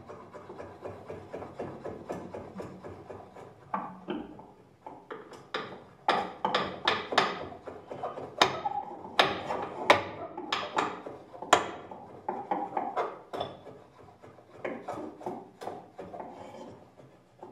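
Free-improvised music played by rubbing and scraping objects on tabletops: a continuous scratchy rubbing with sharp taps and clicks. The clicks come thick and fast from about five seconds in to about twelve, then thin out.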